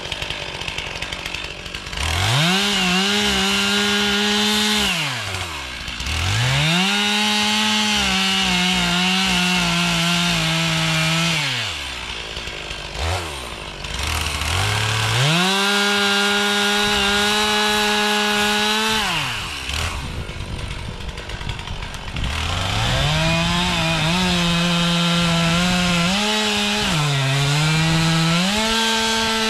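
Chainsaw revving to full throttle and cutting wood in four runs of several seconds each, dropping back to a low idle between cuts. In the last run, near the end, the engine pitch dips and wavers as the saw is loaded in the cut.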